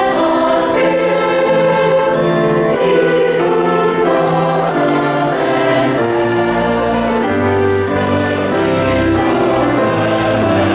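Church choir singing a hymn in parts, with held notes and crisp 's' consonants; a low part grows stronger about seven seconds in.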